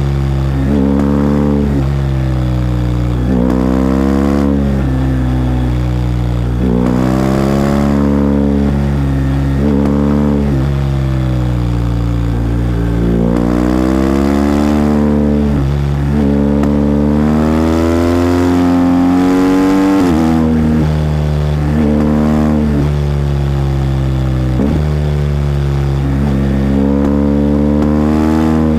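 BMW R1250GS's 1254 cc boxer-twin engine under way, its revs climbing and then falling back every few seconds as the bike accelerates out of bends and rolls off into the next. A long climb in revs ends in a sharp drop about twenty seconds in.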